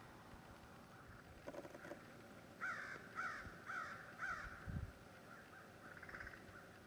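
A crow cawing four times in an even series, each harsh call about half a second apart, after a lower rasping call.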